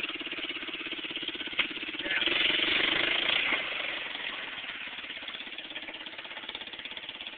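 Small ATV engine running at low revs with a steady rapid pulse. About two seconds in the sound swells louder for a second or so, then eases back down.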